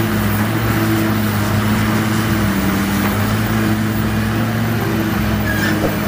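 Large diesel engine of a Caterpillar 385C hydraulic excavator running steadily under load as it digs and lifts a bucket of dirt: a steady low engine note over a wide rushing noise.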